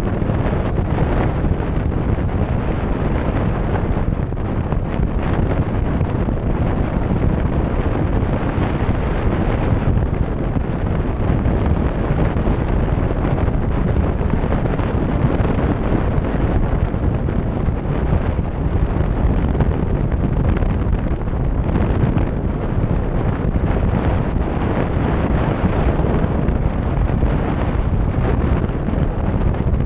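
Steady wind rush buffeting the microphone of a motorcycle cruising at highway speed, with the bike's engine and tyre noise blended underneath.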